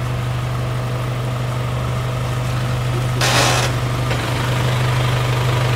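Diesel engine of a flatbed carrier truck idling steadily, with a short hiss a little over three seconds in.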